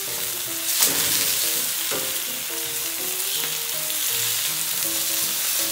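Large prawns sizzling in hot oil in a ceramic-coated frying pan as they are turned with metal tongs, with two sharp clicks of the tongs about one and two seconds in. Quiet background music with a plucked melody underneath.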